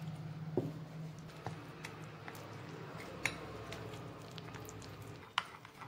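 A metal spoon stirring wet flour batter in a ceramic bowl: a soft mixing sound broken by a handful of light clicks as the spoon taps and scrapes against the bowl.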